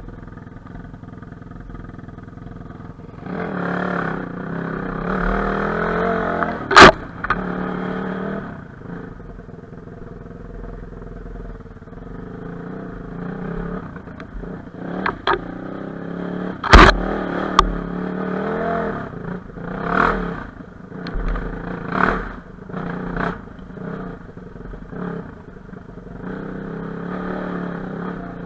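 Enduro dirt bike engine running, the throttle opening and closing so the engine note swells and fades. Two sharp knocks, about seven and seventeen seconds in, are the loudest sounds, with a run of smaller knocks and clatter after the second one.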